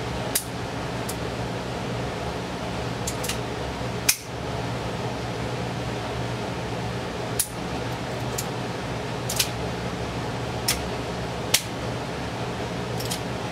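Shots from a Beretta 92FS Compact 9mm pistol fired slowly one at a time: about seven sharp cracks spaced one to four seconds apart, with a few fainter clicks between, over a steady hum.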